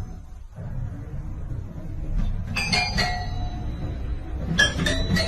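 Metallic clattering and ringing, twice: each time a few quick strikes that ring on in several high tones, over a low rumble.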